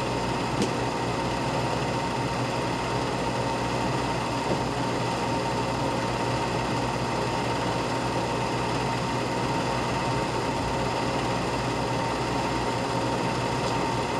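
Steady mechanical running noise of an 8 mm film projector, with a constant tone and a faint click about half a second in.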